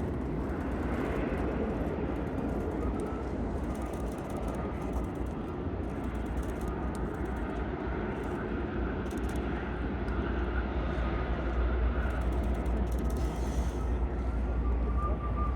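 Jet airliner engines: a steady rumble with a high, steady whine that grows stronger near the end.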